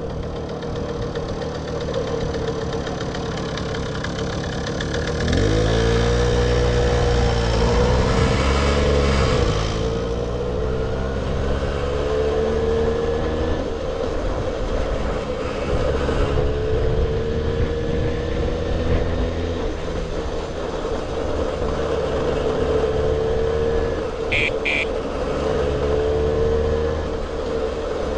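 1978 Puch Sport MK II moped's 50cc two-stroke engine running while riding, its pitch rising and falling with the throttle. It is louder for a few seconds about five seconds in.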